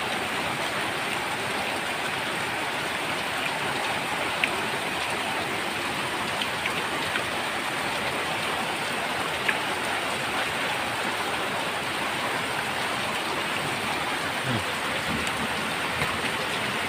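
Steady rainfall, an even hiss of rain with a few brief ticks scattered through it.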